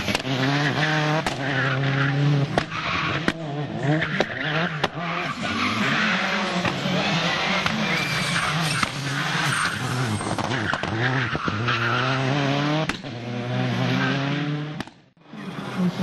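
Peugeot 206 WRC rally car's turbocharged four-cylinder engine revving hard, rising and falling through quick gear changes, with sharp cracks in between and tyres skidding on tarmac. The sound cuts out for a moment near the end.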